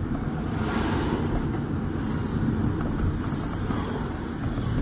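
Road noise inside a moving car's cabin: a steady low rumble of engine and tyres, with a few brief swells of hiss.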